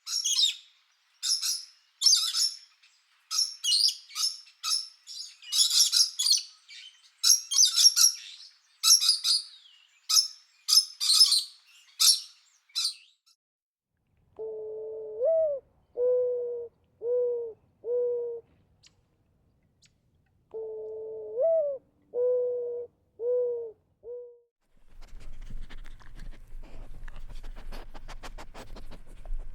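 A small pet bird chirping rapidly in quick high calls for about thirteen seconds, then a dove cooing: two phrases, each one rising coo followed by three short coos. Near the end, a faint scratchy rustling.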